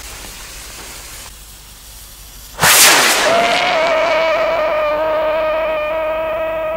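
A 1 lb whistle rocket lifting off about two and a half seconds in with a sudden loud rush, then giving a steady whistle with overtones, rising slightly at first, as it climbs.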